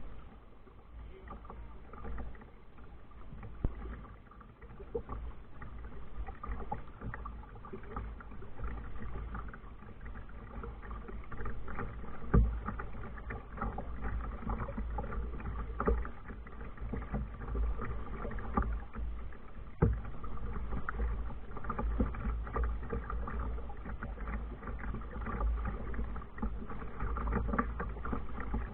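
Kayak under way on the water: a steady wash of water noise over a low rumble, with occasional sharp knocks against the hull.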